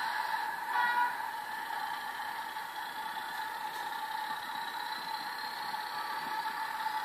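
Train Tech SFX 20 sound capsule in a model Class 37 diesel locomotive playing its diesel engine sound through a small speaker: a steady, thin engine drone. There is a short burst of higher tones about a second in, and a faint whistle slowly rises in pitch over the second half.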